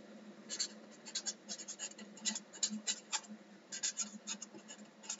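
Felt-tip marker scratching across paper in quick, irregular strokes as a word is handwritten, starting about half a second in.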